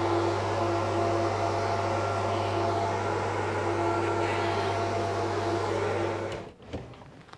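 A compressed-air powder-coating gun hisses steadily as it sprays powder, over a constant machine hum; both stop abruptly about six seconds in.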